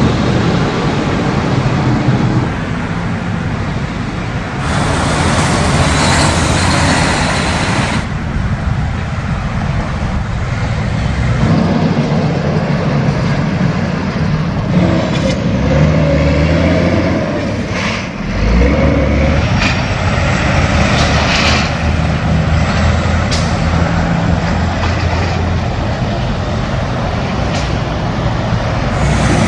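Roadside traffic: diesel semi-trucks hauling heavy equipment and cars driving past, a steady mix of engine drone and tyre noise that swells as vehicles go by.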